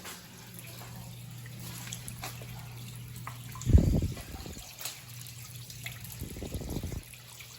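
Water trickling and dripping back into a flooded boiler room, over a steady low hum. A dull thump comes about four seconds in, and a softer one near the end.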